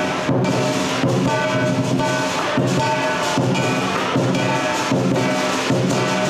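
Lion dance music: sustained pitched instruments over a steady percussive beat, with a sharp accent a little faster than once a second.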